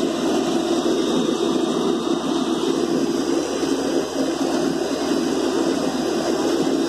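Horizontal directional drilling rig's engine running steadily under load.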